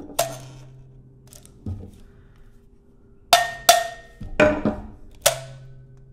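Metal keys of a Shona mbira plucked about six times, in pairs and singly, each pluck a sharp metallic attack. After several plucks a low note near the pitch of C rings on for about a second: the key being checked against the tuner after being tapped into pitch.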